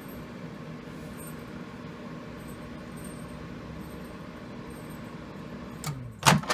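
Microwave oven running with a steady hum; near the end a click and then a loud clunk, like the door being opened, as the hum winds down and stops.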